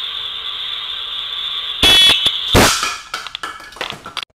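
A steady high-pitched electronic tone sounds until about two seconds in. It is cut off by a loud pellet-pistol shot, with a second sharp crack just after, then a few light clicks and rattles.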